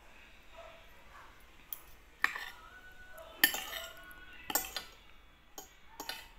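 Metal spoon and fork clinking against a ceramic plate while eating: about seven sharp clinks, each with a short ring, starting about a second and a half in, the loudest about three and a half seconds in.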